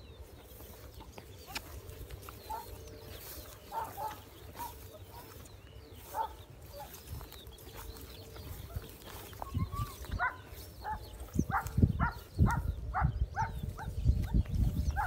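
A dog whining in short, high calls: a few scattered ones, then a quick run of about two or three a second from about ten seconds in. Low rustling thumps run under them and are loudest in the second half.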